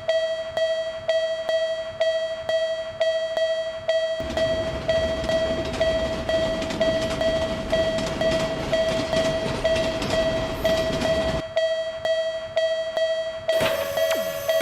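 Japanese railroad crossing warning bell (fumikiri alarm) ringing its repeated 'kan-kan' tone about twice a second. From about four seconds in to about eleven seconds a passing train's rushing noise lies under it. Near the end a second crossing bell, slightly lower in pitch, starts ringing alongside.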